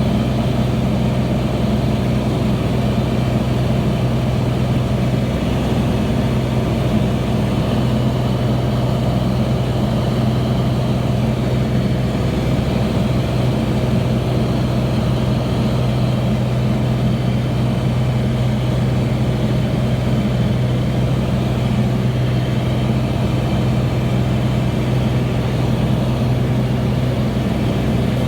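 An engine idling steadily: a constant low hum that does not change speed.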